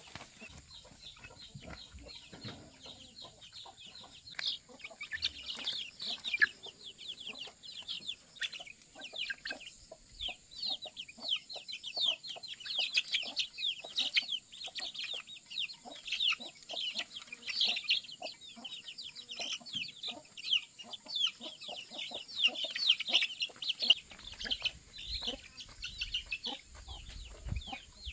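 Chickens calling: a dense, continuous run of short, high peeping calls, several a second, mixed with clucking.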